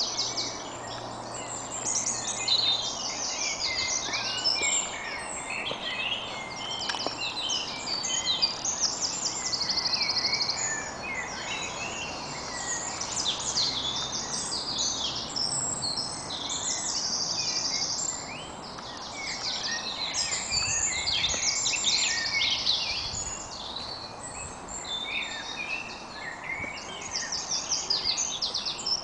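Woodland birdsong chorus: many songbirds singing at once, with overlapping high chirps and rapid trills.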